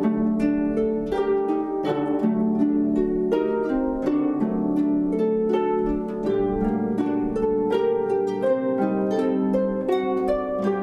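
Instrumental music with no singing: a quick, steady run of pitched notes, each starting sharply and ringing out.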